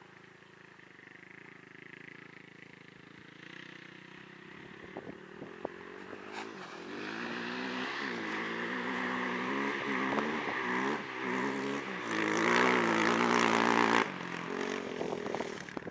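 Distant ATV engine growing louder as it comes nearer, its pitch rising and falling as the throttle is worked while it climbs through sand. It is loudest near the end and then drops off suddenly.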